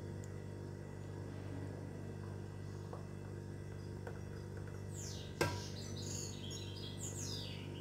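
A steady low hum, then about five seconds in a short run of quick, high, falling bird chirps, with a sharp knock near their start.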